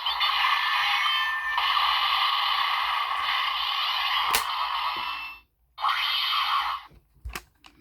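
Electronic sound effect played by a Kamen Rider Saber Dragonic Knight Wonder Ride Book toy. It runs for about five seconds, cuts off, plays again briefly, then a plastic click near the end.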